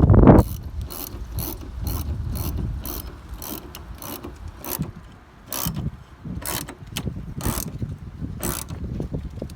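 Hand ratchet with a 1/4-inch socket clicking as it drives bracket fasteners in, in short strokes: about three clicks a second at first, slowing to roughly one a second later. A brief loud low rumble sits right at the start.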